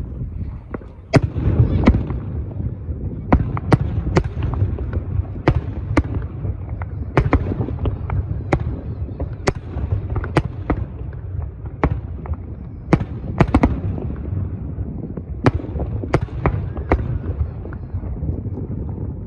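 Aerial fireworks bursting: a long run of sharp bangs at irregular intervals, about one or two a second, over a continuous low rumble.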